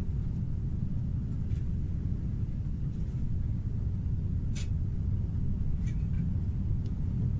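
Steady low rumble of a high-speed passenger train running at speed, heard from inside the passenger cabin, with a few short, faint high swishes over it.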